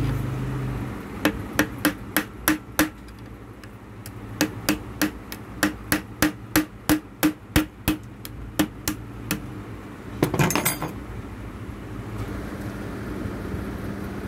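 Hammer tapping a screwdriver, used as a drift, to knock the needle bar bushing out of a Juki sewing machine. Sharp metal strikes come about three a second, first a short run and then, after a pause, a longer one, with a brief rattle near the end.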